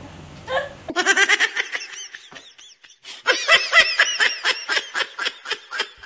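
Laughter sound effect: a high-pitched laugh in rapid, rhythmic bursts, in two bouts with a short break about two seconds in.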